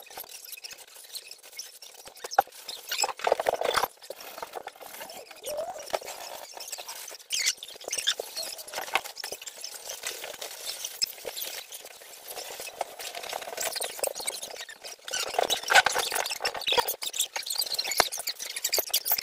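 Irregular hand scraping and rubbing strokes against a wall, with short squeaks and clicks, growing busier toward the end.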